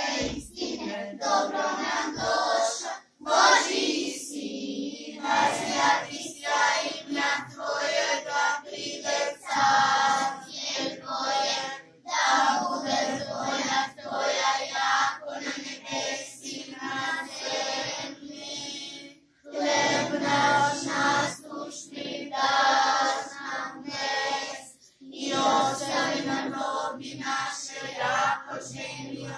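A group of children and women singing a Christmas song together, line by line, with a few brief breaks between phrases.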